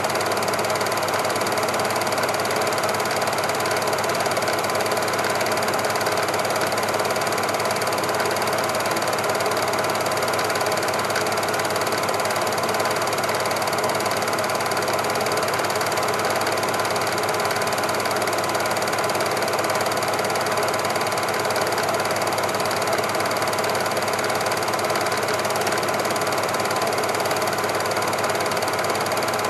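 Super 8 film projector running steadily: the even whirr and fast mechanical chatter of its motor and film-advance mechanism, with no sound from the trains on screen.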